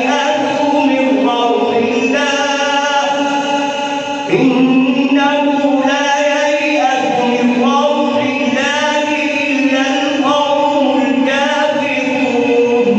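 A man's voice in melodic Quran recitation, drawing out long held notes that step up and down in pitch.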